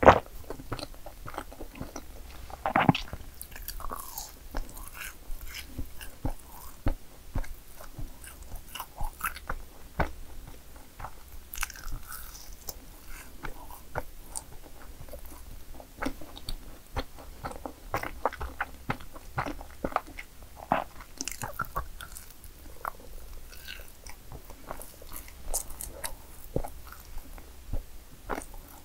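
Close-miked mukbang eating sounds: a person biting into and chewing madeleines, a steady run of small irregular clicks and crackles with a sharper bite about three seconds in.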